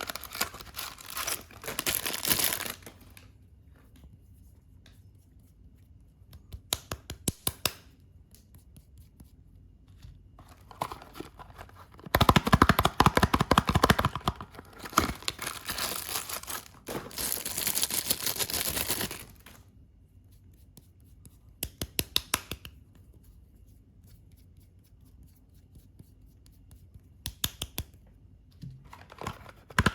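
Soap packaging being torn open and crinkled by hand, in bursts of a few seconds with quiet pauses between, the longest and loudest stretch in the middle.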